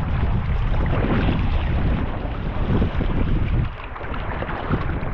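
Rushing water of a river rapid around a kayak, with wind buffeting the microphone.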